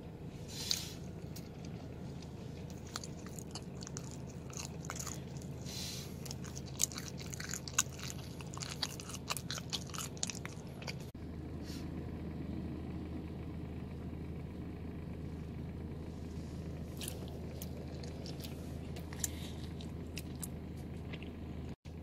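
A person biting and chewing crunchy food close to the microphone: a dense run of crisp crunches through the first half, only a few later, over a steady low hum.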